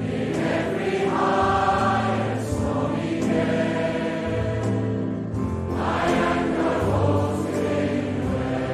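A large congregation singing a hymn together, many voices in sustained sung phrases.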